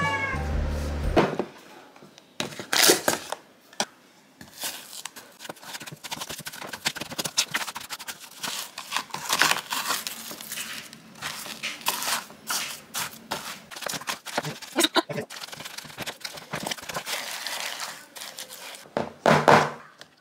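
Irregular rustling, crinkling and light clicks of hands at kitchen work, handling packaging and utensils, with a louder clatter near the end. Background music cuts off about a second in.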